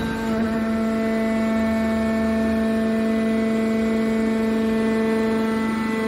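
Hydraulic power unit of a car baler shear running, a steady even hum with several overtones.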